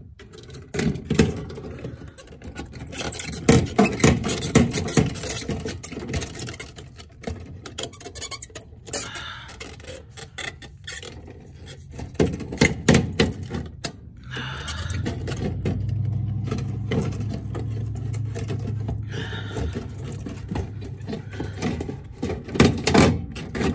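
Irregular plastic knocks and scraping as a car's fuel pump module, float arm included, is worked by hand out of the fuel tank opening. A steady low hum runs for a few seconds in the middle.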